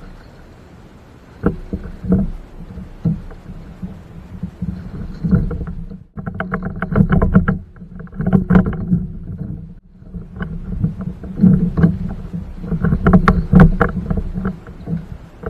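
Irregular knocks, bumps and scraping on a plastic sit-on-top fishing kayak's hull as a man climbs aboard at a boat ramp, in two loud spells of clattering, the second near the end.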